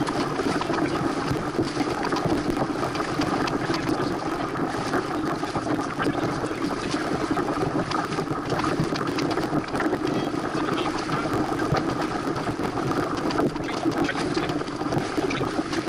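Steady rush of wind and water passing a Santana 525 sailboat under sail.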